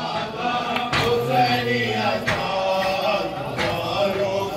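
A group of men chanting a nauha, an Urdu mourning lament, in chorus, with rhythmic matam (open-handed chest-beating) strikes falling about every second and a quarter.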